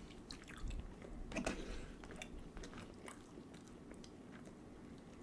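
A person chewing and biting food close to the microphone: soft, scattered wet clicks and smacks, a little louder in the first couple of seconds and then fainter.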